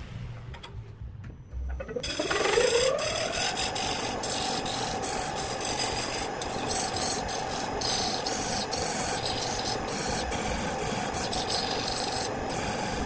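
Wood lathe starting up about two seconds in, its motor whine rising in pitch and then holding steady. A continuous rasping rub of something held against the spinning wooden piece rides over it.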